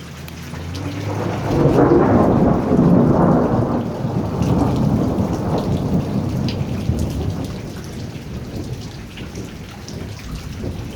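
A long, loud roll of thunder that builds over the first two seconds, peaks, then slowly rumbles away, over steady rain.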